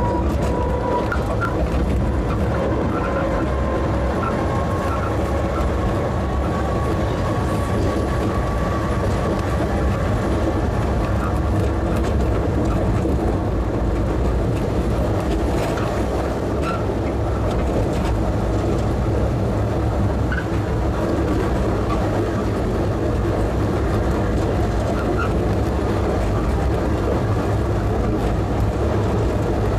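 Postojna Cave tourist train running steadily on its rails, heard from on board. It makes a constant low rumble with scattered clicks from the wheels and track. A faint thin whine runs through the first ten seconds or so.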